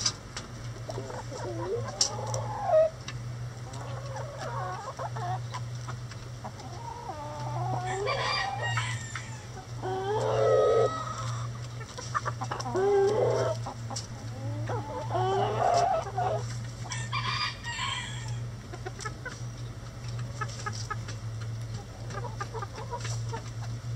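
Backyard chickens clucking and calling, with rooster crows among the louder calls in the middle stretch, over a steady low hum. Two sharp taps stand out about two to three seconds in.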